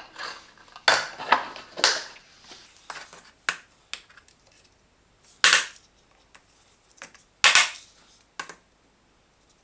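Sharp metal clicks and knocks, about eight spaced a second or two apart, from a filter basket and an espresso portafilter being handled: the basket set in, rotated and taken out.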